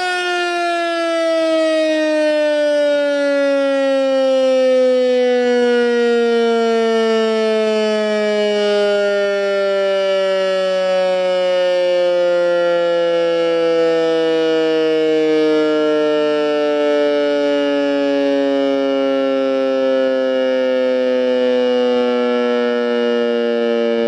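Electromechanical rotary civil-defence siren with a mushroom hood, winding down after its run: the rotor coasts and the wail's pitch falls slowly and steadily all the way through, still sounding loudly at the end.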